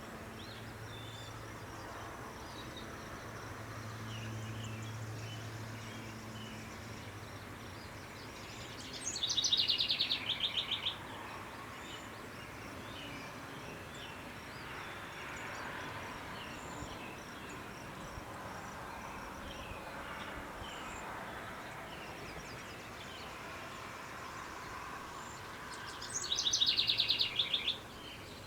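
A songbird singing twice, about a second and a half apart from the quiet in between, each song a quick high note dropping into a fast trill about two seconds long. Faint chirps from other birds run over a steady outdoor background hiss, with a low hum in the first few seconds.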